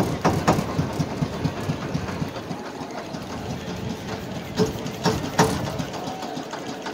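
Motor boat engine running with a steady low chugging. A few loud, sharp knocks stand out about half a second in and twice around five seconds in.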